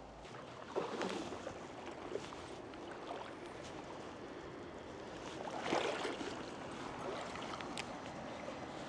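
Steady rush of a shallow stream, with two louder sloshing splashes of water, about a second in and again near six seconds in.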